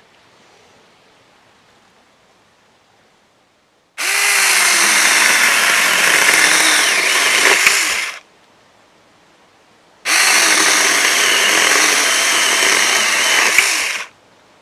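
Saker mini battery-powered electric chainsaw running in two bursts of about four seconds each while cutting through wood. Each burst starts and stops abruptly, and the motor's pitch sags briefly as the chain bites.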